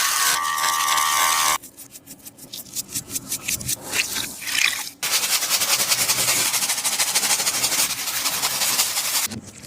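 Taba squishies being squeezed and handled, giving crinkly, crackling squishing sounds in a few abruptly cut sections. A steady hiss leads into a softer stretch of quick repeated crackles, then a dense crackling hiss.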